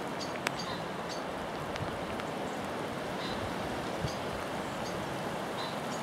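Steady outdoor rushing noise, with short, high chirps and faint ticks scattered through it.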